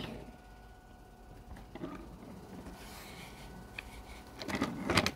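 Faint handling noise with a few light clicks, then a short patch of rubbing and scraping near the end.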